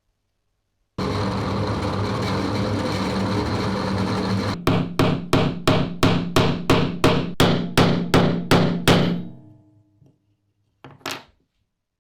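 A machine runs with a steady hum. Then about a dozen sharp hammer-like knocks follow at roughly three a second, and one more knock comes near the end.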